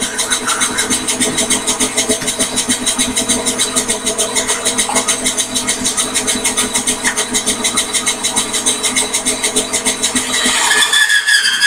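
Microlux variable-speed bandsaw running and cutting through a piece of peach wood, with a fast, even pulsing. Near the end the sound changes to a higher, steadier whine.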